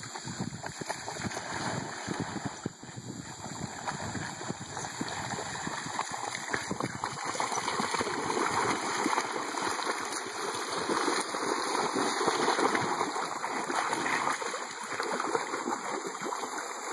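Australian cattle dogs splashing as they run and wade through shallow creek water: a busy, continuous splashing that grows louder after the first few seconds.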